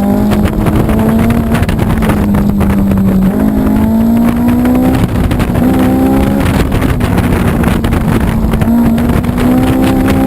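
Honda S2000's inline-four engine running hard at high revs during an autocross run, its pitch holding high with small rises and dips as the driver works the throttle through the course.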